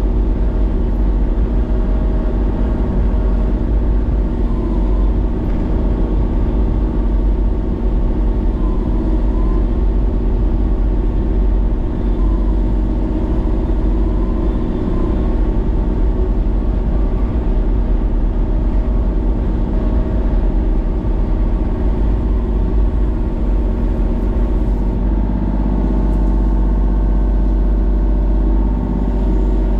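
Kubota mini excavator's diesel engine running steadily while its hydraulic boom and thumb handle a felled pine log, with a shift in the engine's tone near the end.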